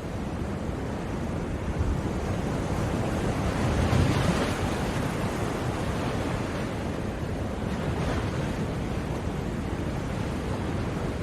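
Sea surf: waves breaking in a steady rushing wash, swelling loudest about four seconds in and again, more gently, near eight seconds.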